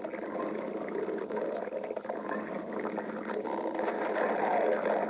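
Human stomach growling: a continuous low rumbling and gurgling that grows louder about three and a half seconds in.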